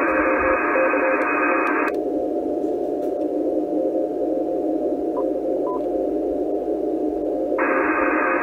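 ICOM IC-746 receiver hissing with a weak Morse code signal keyed faintly under the noise. About two seconds in a narrow CW filter is switched in and the hiss suddenly turns duller and narrower around the Morse tone; near the end the wide filter comes back and the brighter hiss returns. Two short faint beeps come midway.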